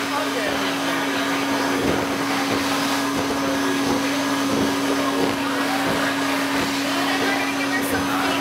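Teddy-bear stuffing machine's blower running steadily, a constant hum under a rush of air, as stuffing is blown through the nozzle into a plush bear.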